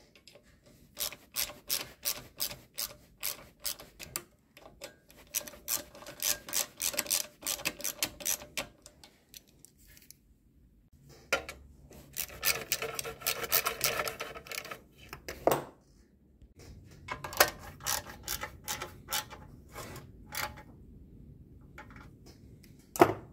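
Hand tool driving bolts into a small Briggs & Stratton engine's sheet-metal blower housing. A ratcheting driver clicks in runs of about four clicks a second. Metal scrapes and rattles in between, and there is one sharp knock near the end.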